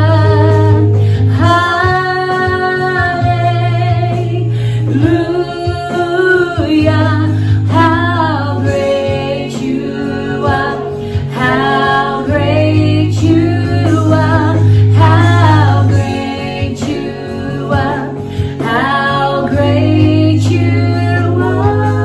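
A woman singing a worship song into a microphone, with long held notes, over instrumental accompaniment that sustains low notes beneath her.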